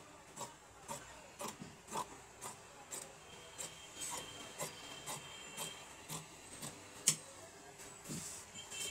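Large steel tailor's shears cutting through coat fabric: a steady run of snips, about two a second, with one sharper click about seven seconds in.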